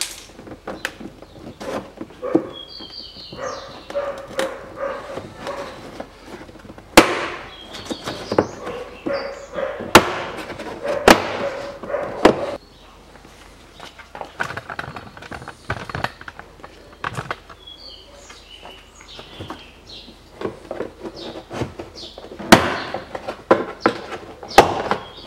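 Plastic trim-removal tools prying the trim panel off a Range Rover Evoque's rear door: a run of sharp clicks and snaps as the panel's retaining clips are worked loose, with plastic rubbing and rattling between them. The clips sit tight, so the prying goes on at length.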